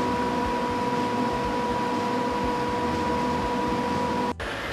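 Roof-mounted Klimawent exhaust-extraction fan running: a steady rushing with a constant hum in it, breaking off abruptly near the end.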